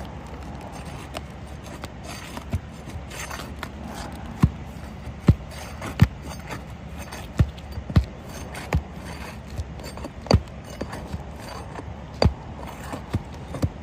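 Sharp, irregular knocks of a pry tool working asphalt-shingle roofing nails loose, about one a second.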